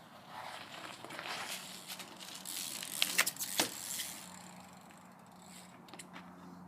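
BMX bike rolling and rattling, with a cluster of sharp clattering knocks about three seconds in, the loudest part.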